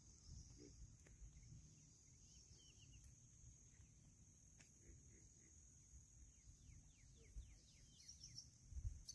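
Faint evening outdoor ambience: insects giving a steady high drone, with a bird calling a quick run of short descending notes near the end, over a low rumble of wind.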